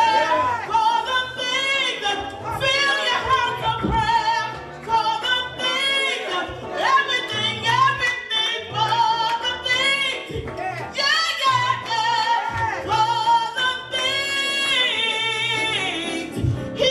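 Music with a solo voice singing long, wavering, ornamented lines over a steady bass line.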